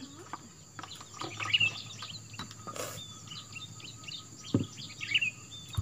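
Small birds chirping on and off, short high calls scattered throughout, with one dull thump about three-quarters of the way through.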